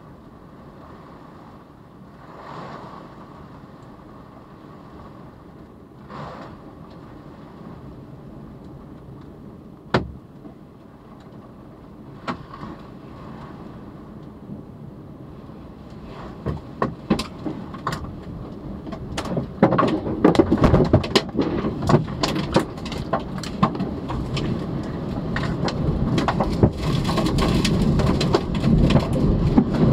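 Heavy rain and wind beating on a parked SUV, heard from inside the cabin, with a few sharp knocks on the body. From about 16 seconds in, hard hits of rain and flying debris against the roof and glass come thicker and louder as the tornado's winds reach the vehicle.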